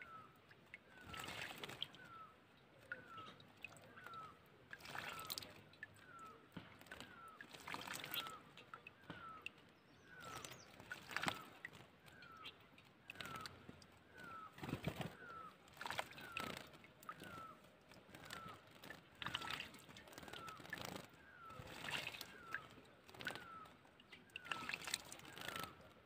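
House sparrow bathing in a bucket of water: short bursts of splashing and wing-fluttering every couple of seconds. Behind them, a short bird chirp repeats evenly about every three-quarters of a second.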